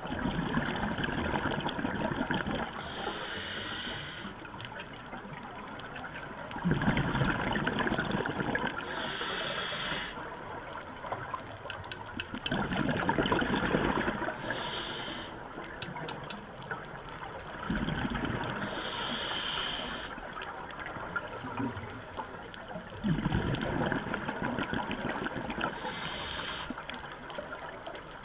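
Scuba regulator breathing heard underwater: about five breaths, each a short hissing inhale through the regulator with a thin high whine, and a gurgling rush of exhaled bubbles, repeating every five to six seconds.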